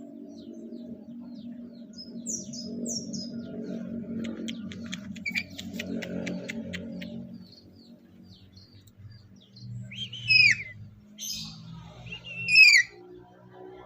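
Black-capped lory calling: a quick run of clicking chatter, then two loud, sharp whistles that fall in pitch near the end.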